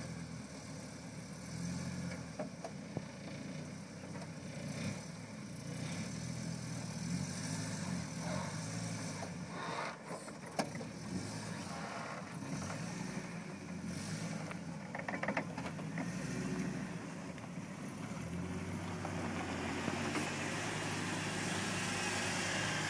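Volkswagen T3 Syncro four-wheel-drive van's engine running at low revs as it crawls over deep ruts, with scattered knocks and clicks along the way. Near the end a hiss rises as the van comes up close.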